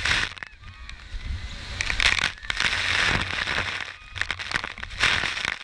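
Waterfall spray pelting the boat and the microphone: a rough, crackling rush of water noise that surges loud about two seconds in and again near the end.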